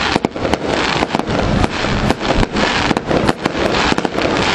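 Fireworks crackling: a dense, unbroken run of sharp pops and cracks.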